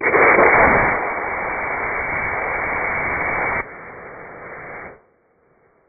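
Estes-type 18 mm C6 black-powder model rocket motor firing in a static test and played back at half speed: a sudden, loud rushing hiss that is strongest in the first second and steady after that. About three and a half seconds in it drops abruptly to a quieter hiss as the thrust ends, and that dies away about five seconds in.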